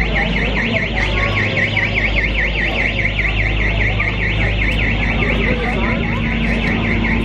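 A high electronic warbling tone, sweeping up and down rapidly several times a second without a break, over a steady low hum and the chatter of a crowd.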